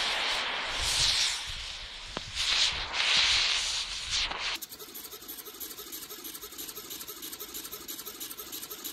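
A rushing hiss that swells and fades several times, which stops abruptly about halfway in. Then comes a quieter, fast, regular ticking whir of small hobby servos moving a dual-axis thrust-vector-control motor gimbal.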